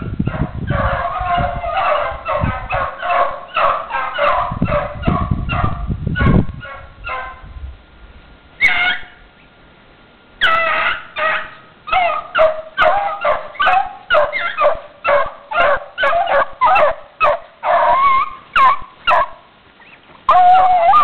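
A pack of beagles baying in quick repeated notes while running a rabbit's track. The cry breaks off for a few seconds around the middle, with one lone call, then starts up again.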